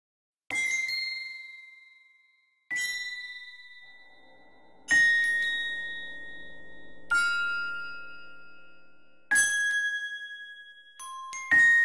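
Background music of slow single bell-like notes, one about every two seconds, each ringing out and fading slowly, with a soft low chord underneath in the middle.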